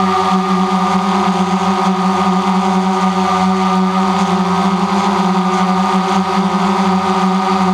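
DJI Phantom quadcopter's four propellers and brushless motors running steadily, heard from a camera mounted on the drone itself: a loud, even hum with a strong low tone and many overtones above it.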